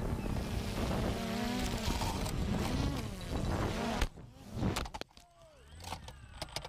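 Multirotor drone's propellers buzzing steadily while the motor pitch wavers. About four seconds in the buzz cuts off as the drone tumbles through tree branches, with a few sharp knocks of the crash.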